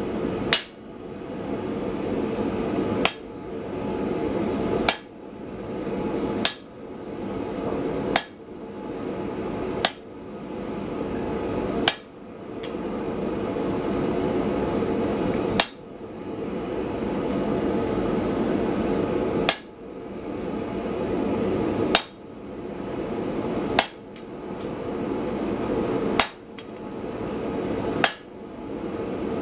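Hand hammer striking a hot cable Damascus bar held in a 60-degree swage block on the anvil: about thirteen single, ringing blows spaced a couple of seconds apart, forge-welding the cable strands together.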